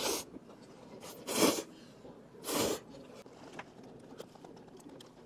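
A person slurping jjamppong noodles in three short noisy bursts about a second apart, the middle one loudest, followed by faint light clicks as he eats.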